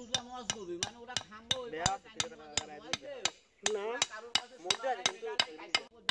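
Rapid light tapping, about three or four strikes a second, as the back of a curved steel blade, used as a hammer, drives a thin nail into a solid wooden block.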